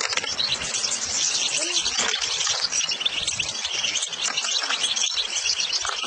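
Many European goldfinches twittering at once: a dense, steady, high-pitched chatter of overlapping calls.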